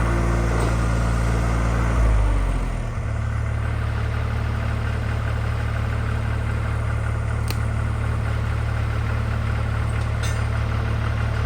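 Skid steer engine running at raised speed, then throttled down about two seconds in, its pitch falling, and idling steadily after that.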